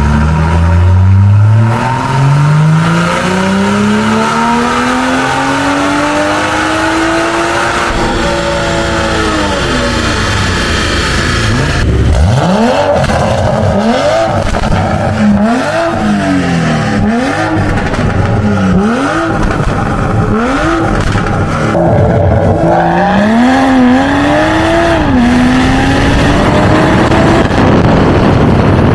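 Toyota A90 Supra's turbocharged engine through a catless downpipe and full aftermarket exhaust. It opens with a full pull on the dyno, the pitch climbing steadily for about eight seconds. After a cut come quick free revs, each rising and falling about once a second, and near the end it accelerates again with a rising note and a brief dip at a gear change.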